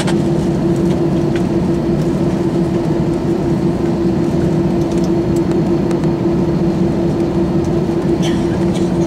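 Airbus A321 cabin noise while taxiing: the jet engines and the airflow make a steady, even drone with a constant low hum through it.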